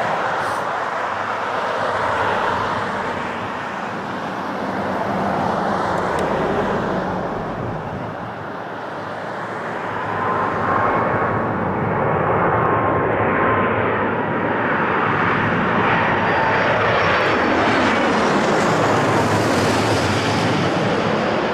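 Airbus A330 airliner's jet engines on final approach, a steady rushing noise that grows louder from about halfway and peaks as the aircraft passes low overhead near the end. Thin whining fan tones drift slightly in pitch through the middle.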